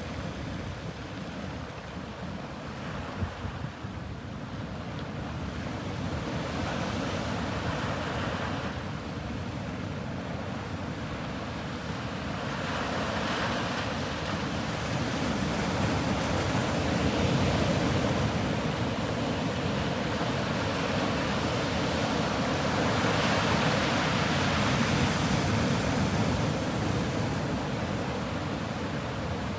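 Sea waves breaking and washing up the shore, swelling and easing in several surges, with some wind noise on the microphone.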